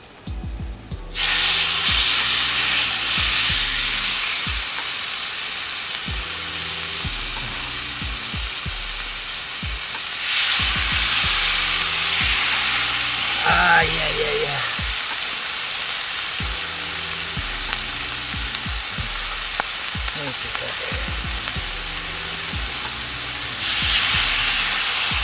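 Raw marinated chicken pieces sizzling in hot oil on a steel saj griddle over a campfire. The sizzle starts suddenly about a second in, when the first piece goes down, and flares louder about ten seconds in and again near the end as more pieces are laid on.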